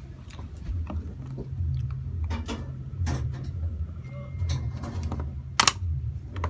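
Scattered small clicks and handling noises over a steady low hum, with one sharp click about five and a half seconds in.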